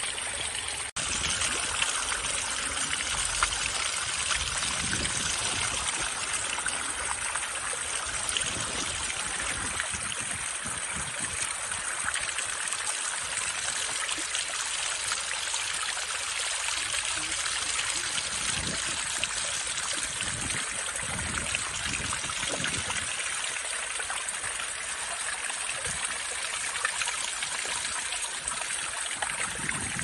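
Water still falling and trickling behind the icicles of a partly frozen waterfall: a steady splashing hiss that briefly drops out about a second in.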